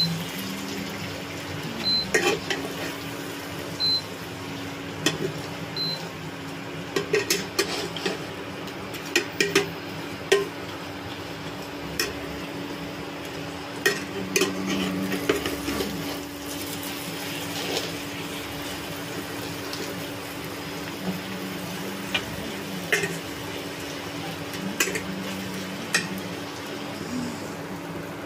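A stainless steel slotted spatula scrapes and knocks against a frying pan as chicken fry is stirred, in irregular clicks and scrapes over a steady low hum. Four short high beeps come about two seconds apart near the start.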